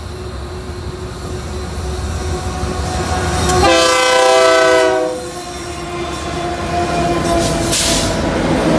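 Union Pacific diesel locomotives hauling a container train approach and pass close by, their engines rumbling and growing louder. About three and a half seconds in, the lead locomotive sounds one horn blast of several tones, about a second and a half long and the loudest sound of all. Engine and wheel noise then build again as the locomotives roll past, with a brief hiss near the end.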